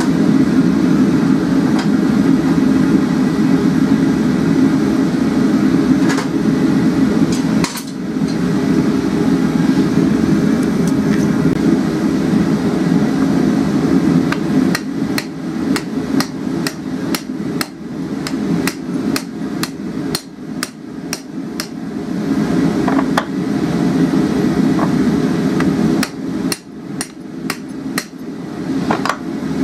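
Blacksmith's hand hammer striking red-hot 12 mm square steel on an anvil while shaping a forged hook. The blows come quickly, two or three a second, in a long run from about halfway through, then pause and return in a shorter run near the end. A steady rushing of a gas forge burner runs underneath.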